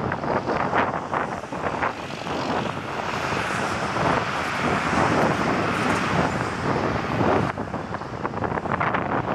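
Twin-engine jet airliner passing low on landing approach: its engine noise swells from about two and a half seconds in and drops away sharply about seven and a half seconds in. Wind buffets the microphone at the start and end.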